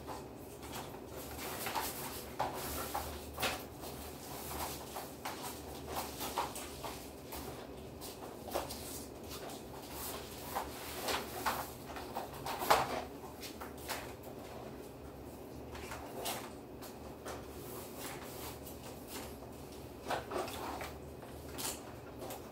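Foam darts being pushed by hand into Nerf blasters' drum and magazine: scattered light plastic clicks and rattles at an uneven pace, with one sharper knock about halfway through.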